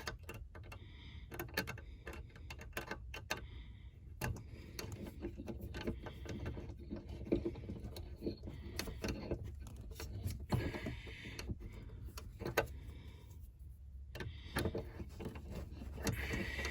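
Irregular light clicks and knocks of hand work on screws and small hardware, with brief scraping now and then, over a low steady hum.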